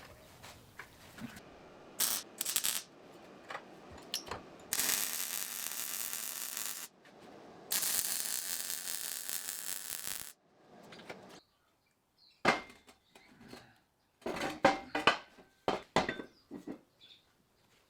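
Metalworking on a steel firepit build: scattered clinks and knocks of steel pieces being handled, and two steady hissing bursts of about two seconds each in the middle.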